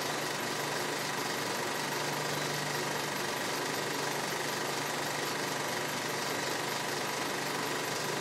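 Steady mechanical running noise: an even, rattling hum that never changes in level.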